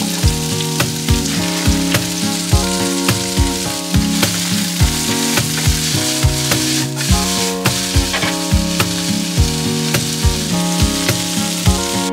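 Shredded vegetables stir-frying in oil in a nonstick frying pan: a steady sizzle, with the occasional scrape of a wooden fork stirring. Background music with a steady beat plays over it.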